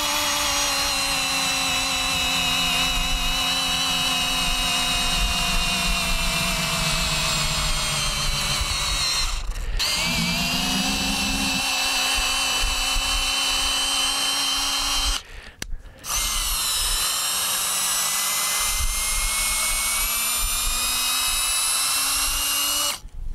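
Milwaukee cordless drill turning a ship auger bit into a wooden fence post. Its motor whine is steady and slowly sinks in pitch under load. It stops briefly about ten seconds in and again around fifteen seconds, starts up again each time, and cuts off near the end. The small 1.5 Ah battery is almost drained, down to one bar of four.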